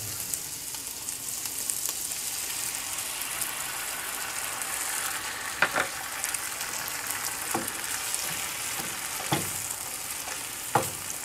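Beaten eggs sizzling as they fry in a nonstick pan with browned sausage and onions: a steady hiss. A few short knocks in the second half come from the spatula against the pan.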